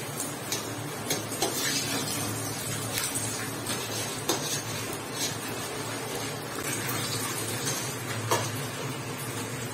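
Kitchen clatter: utensils knocking and clinking against pots and dishes, several sharp clacks scattered over a steady background hiss.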